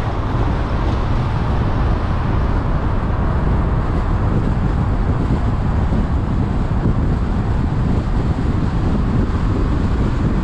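Steady road and wind noise of a car driving, a constant deep rumble with a hiss over it.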